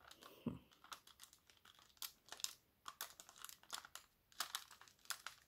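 Faint, irregular crinkling of a brown paper sheet with small clicks as fingers press and arrange wax petals on it.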